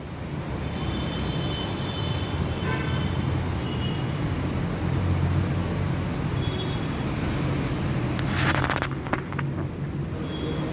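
A steady low rumble, with faint high tones now and then and a brief noisy burst about eight and a half seconds in.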